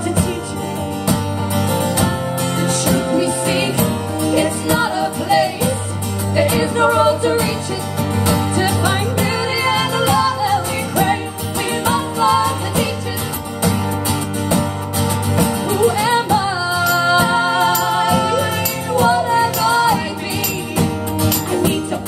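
Two women singing into microphones over two acoustic guitars in a live acoustic folk song.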